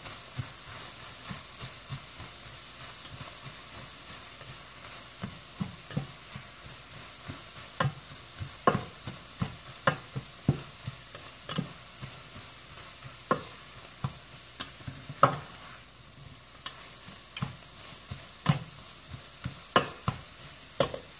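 Chicken sausage and vegetables sizzling in a stainless steel skillet while a spatula stirs them, with irregular sharp knocks and scrapes against the pan, more frequent from about eight seconds in.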